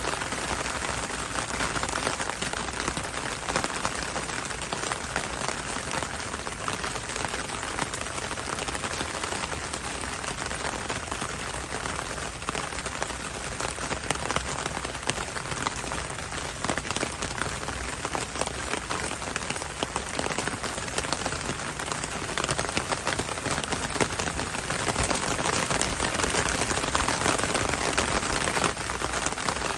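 Steady rain falling, with a dense patter of individual drops tapping on a window pane.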